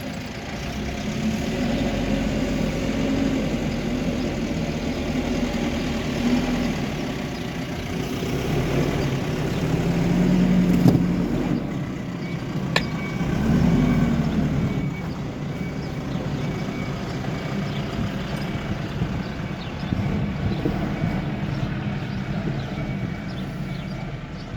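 Hidromek HMK 102S backhoe loader's diesel engine running under work, revving up twice about halfway through, with two sharp knocks.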